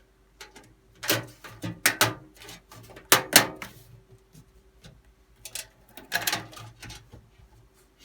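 Motherboard I/O back plate being handled and pressed into the rear opening of a steel PC case: a run of sharp metallic clicks and clatters, loudest about three seconds in, with another cluster around six seconds.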